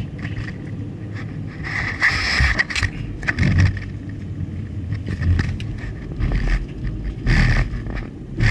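Car driving, a steady low rumble of road and engine noise, with irregular scraping noises over it, most marked about two seconds in and again near the end.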